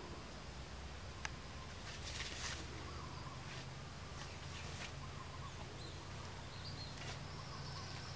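A hoe chopping into soil and rotten wood at the base of a fallen log: several sharp strikes spaced irregularly over steady outdoor background noise.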